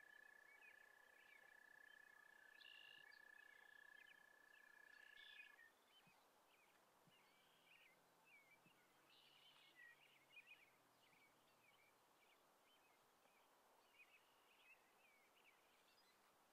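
Faint outdoor ambience with small birds chirping sparsely throughout. A steady high-pitched trill runs until about five seconds in and then cuts off.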